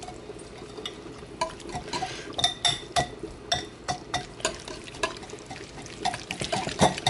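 A kitchen utensil stirring and clinking against cookware: sharp, ringing clinks about twice a second, starting a little over a second in.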